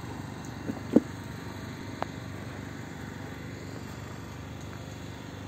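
Handling noise: a few short, light knocks, the loudest about a second in, over a steady low background hum.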